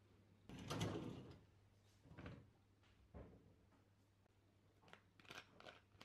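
Dishwasher filter and wire racks being handled: a scraping, rattling clatter about half a second in, a shorter one near two seconds, then a few light clicks.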